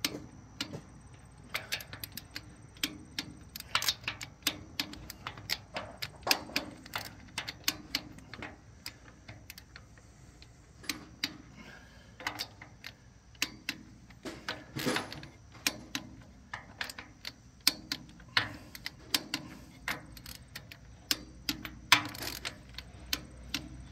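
Ratcheting torque wrench clicking in quick irregular runs as bolts on a cast-iron tractor lift cover are run down and torqued to 30 foot-pounds, with a few louder clicks among them.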